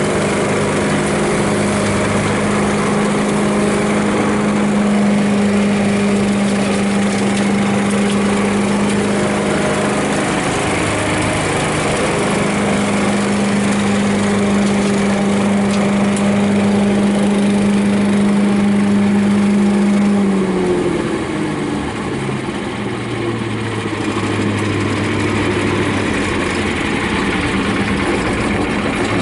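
Terra Vac Colt paddock vacuum's 13 hp petrol engine running steadily, with the rush of air through the suction hose as it picks up straw and muck. About two-thirds of the way through, the engine note drops and settles at a lower, steady pitch.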